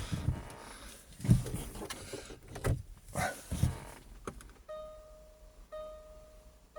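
A few dull knocks and rustles of handling in the car, then an electronic warning chime that sounds three times about a second apart, a steady mid-pitched tone each time.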